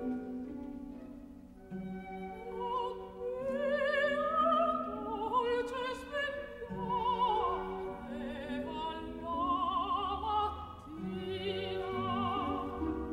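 Operatic singing with wide vibrato over orchestral accompaniment, as background music. The voice comes in about two and a half seconds in and sings long held phrases.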